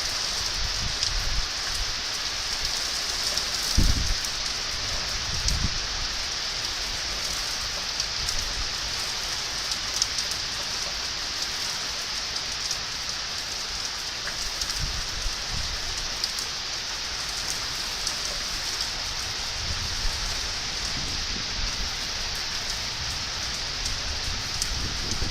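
Heavy rain falling steadily during a thunderstorm. A few brief low thumps stand out about four seconds in and near the end.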